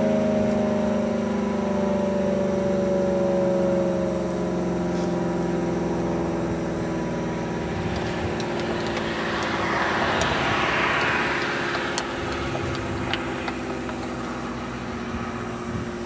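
Federal Signal Allerter 125 rotating tornado siren sounding its steady alert tone, its pitch sagging slowly and growing gradually quieter, with a hissy swell about two-thirds of the way through as the turning horn sweeps past. It is an old, tired siren with a weak output and a failing motor.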